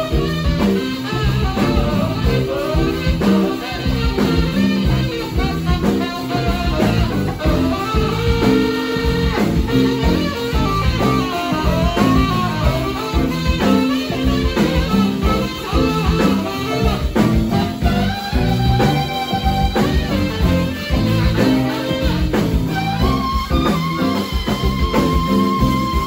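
Live blues band playing: a saxophone leads over electric guitars, bass and drum kit, with a steady beat.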